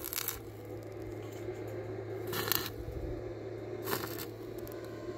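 A steady low hum with three brief, sharp clattering or scraping noises, as of objects being handled.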